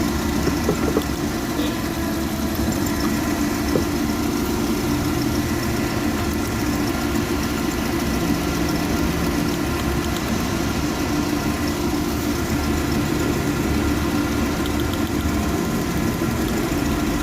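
Suzuki F10A four-cylinder engine idling steadily while misfiring, a sign of a cylinder not firing that the mechanic takes to be number 4 and blames on its spark plug.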